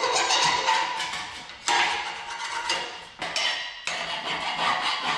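Hand tool striking a welded steel horseshoe sculpture to knock weld slag off. Sharp metallic knocks come at uneven intervals of about a second, and each rings briefly.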